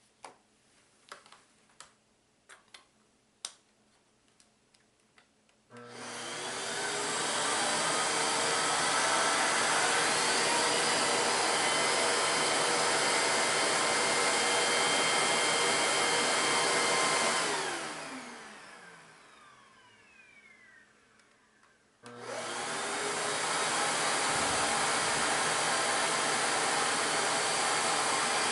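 A few light clicks, then a vacuum cleaner switched on, running loud and steady with motor tones. About two-thirds of the way through it is switched off and its motor winds down, falling in pitch. A few seconds later it starts again.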